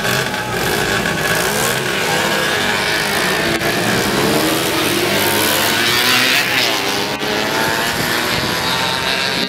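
A pack of small motorcycles, mopeds and scooters revving and pulling away together: many engines at once, their pitches rising and falling over one another.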